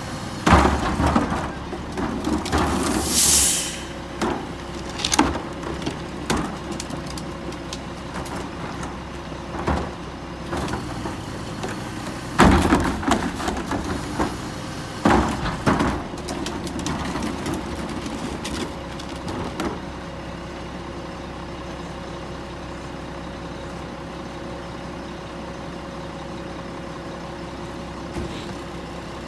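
Mack LE garbage truck's diesel engine running while garbage carts bang and thud as they are tipped into the Heil carry can on its forks, with a short hiss of air about three seconds in. The banging stops about two-thirds of the way through, leaving the truck idling steadily.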